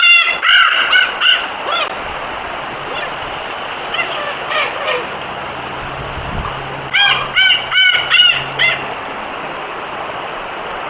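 A bird calling in two quick series of short repeated calls, about six notes each: one at the very start and another about seven seconds in, over a steady background hiss.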